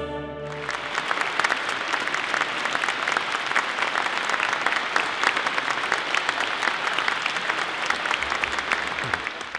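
A large audience applauding, many hands clapping densely, just after the last chord of the choir and orchestra dies away in the first half second. The applause fades out at the end.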